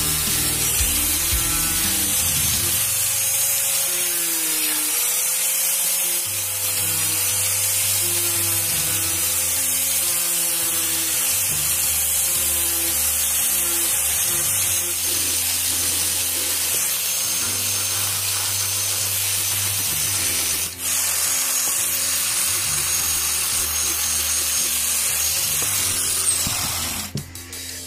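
Angle grinder with a sanding disc running against wood, sanding a small curved wooden handle, its motor whine wavering as it is pressed into the work. Near the end it is lifted off and winds down.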